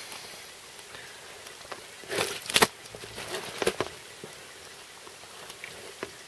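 Steady patter of rain, with a few sharp knocks and rustles near the middle.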